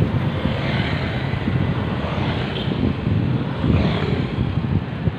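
Wind buffeting the microphone of a phone on a moving bicycle: a loud, uneven low rumble over a steady rush of road noise.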